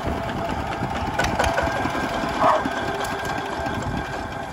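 Single-cylinder RT155 diesel engine of a two-wheel walking tractor running steadily with a fast chugging beat.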